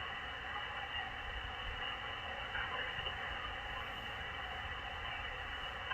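Steady hiss of band noise from the Malachite DSP SDR receiver on an open single-sideband voice channel, with a low hum underneath: the net frequency is idle between transmissions, with nobody answering the net control's call.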